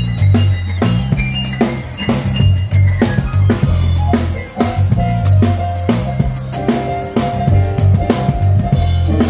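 Music with a heavy bass line and a steady drum beat, played loud.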